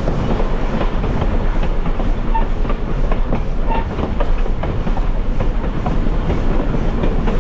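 Excursion train rolling along the track, heard from aboard: a steady, loud rumble of the wheels with frequent clicks and knocks from the rail joints and running gear.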